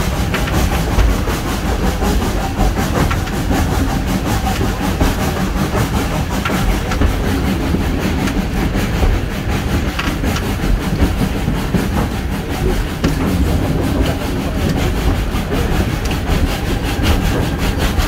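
Steam-hauled heritage train running, heard from an open-sided passenger car: a steady rumble of wheels on the rails with clacking over the rail joints.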